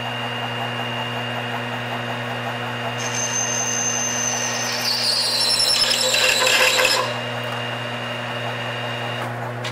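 Metal lathe running in reverse at 320 RPM with an inverted half-inch-wide high-speed-steel form tool plunging into 316 stainless steel. About three seconds in, a high squeal with scraping starts from the cut. It grows louder and slides slightly lower in pitch, then stops sharply about seven seconds in, leaving the steady hum of the lathe running.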